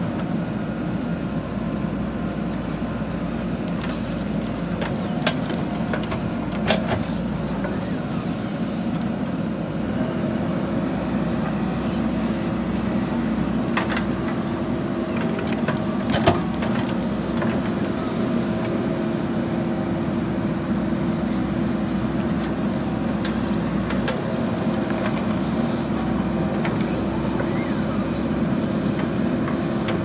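JCB 3DX Super backhoe loader's diesel engine running steadily under digging load. A few sharp knocks come through, the loudest about halfway through.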